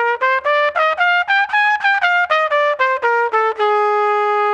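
Trumpet playing the bebop dominant scale from the seventh, a mixolydian scale with both the major and flat seventh. It runs in short separate notes, about four a second, climbing and then coming back down, and ends on a long held low note for the last second.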